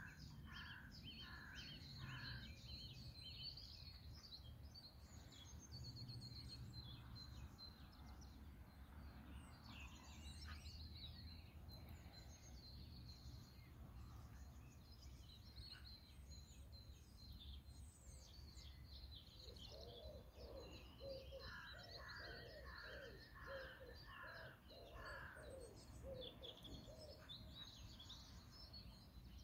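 Faint outdoor birdsong: small birds chirping throughout. A short run of about five repeated calls comes at the very start. About two-thirds of the way through comes a longer run of repeated calls, with a lower-pitched series under it, all over a steady low rumble.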